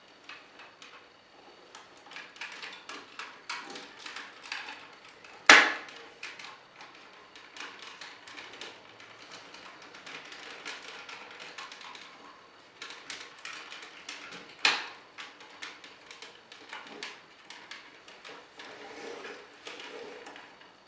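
Hard plastic parts of a Power Rangers Samurai Octozord and Clawzord toy being handled and pressed together: a run of small clicks and rattles, with two loud snaps, one about a quarter of the way in and one about two-thirds in, as pieces click into place.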